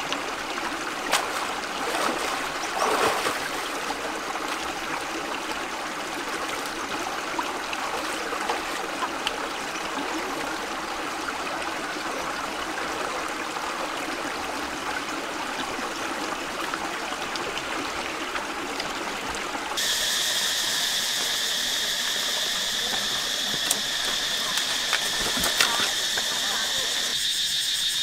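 Shallow stream running and trickling over rocks, with a few splashes in the first seconds. About two-thirds of the way through, the water sound cuts off and a steady, high insect drone takes over.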